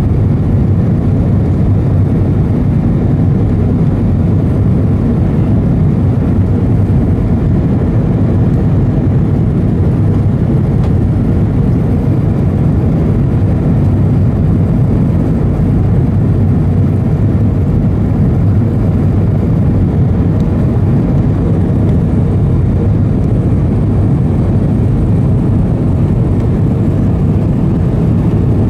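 Steady low rumble of an Airbus A320 airliner in flight: engine and airflow noise heard from inside the cabin, unchanging throughout.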